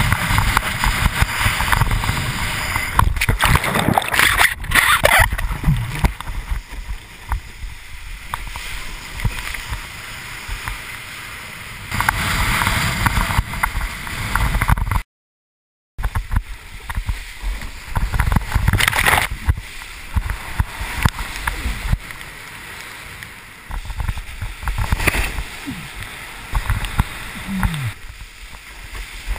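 Wind buffeting an action camera's microphone over water rushing and splashing against a windsurf board sailing at speed, rising and falling in rough surges. It cuts out completely for about a second halfway through.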